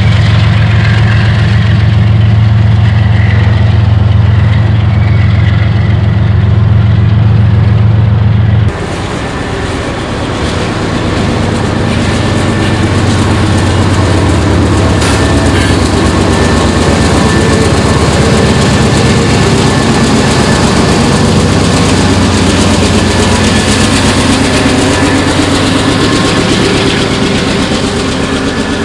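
GE ES44AC diesel locomotives working under throttle, a steady heavy engine drone as their train passes. About nine seconds in, it changes abruptly to a GE AC4400CW diesel locomotive working hard under load, its engine mixed with the noise of the train's steel wheels on the rails.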